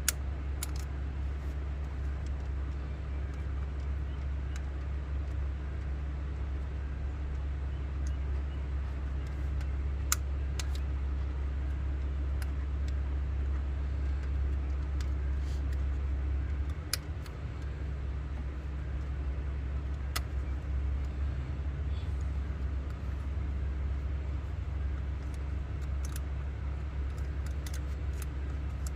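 A vehicle engine idling steadily, a low, even hum, with scattered light clicks and taps over it.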